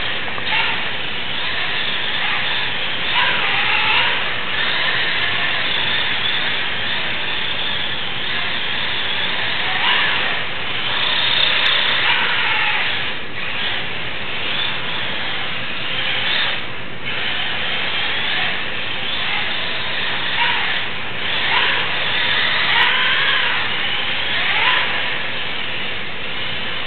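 RC car's motor whining, its pitch rising and falling again and again as the car speeds up and slows through its drifts, over a steady hiss.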